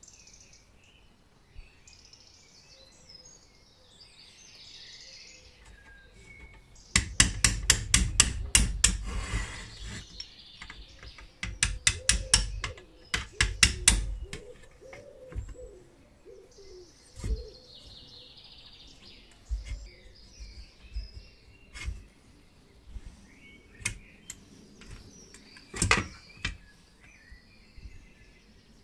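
Hand tools clicking and knocking on the metal housing of a small vintage Miller air compressor as it is taken apart: two runs of rapid clicking lasting a few seconds each, then a few single knocks. Faint bird chirping sits behind it.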